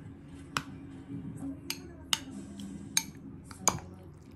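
A metal spoon clinking against a ceramic soup bowl while soup is scooped, about five sharp clinks, the loudest near the end, over soft background music.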